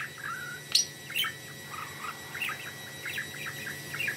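Male budgerigar singing its warbling song: a steady run of short chirps, clicks and squeaky notes, with a few sharper high chirps about a second in.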